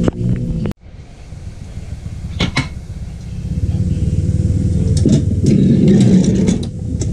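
Low, steady mechanical rumble of a running motor, dropping out briefly about a second in and then growing louder over the next few seconds, with a few short sharp clicks.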